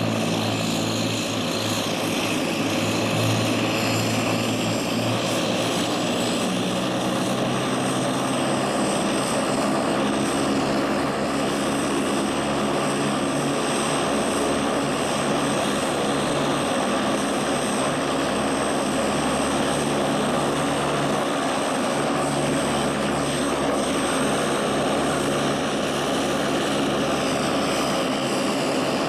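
Fuji T-5 trainer's Allison 250 turboprop running steadily at ground idle: a propeller drone with a thin high turbine whine over it.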